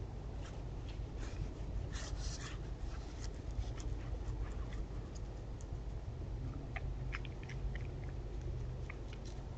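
White-tailed deer eating from a hollow in a tree-stump feeder: irregular crunching and clicking of chewing, with a denser run of crunches about two seconds in.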